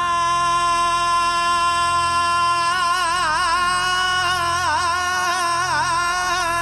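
Background score of a drama: a solo singing voice holds one long steady note, then wavers through ornamented turns from about three seconds in, over a faint low drone.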